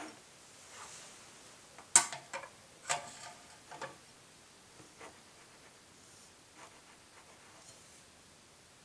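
A small china plate being turned by hand on a countertop, with the cutlery on it clinking: a cluster of sharp clinks and knocks from about two to four seconds in, the first the loudest, then a few fainter taps.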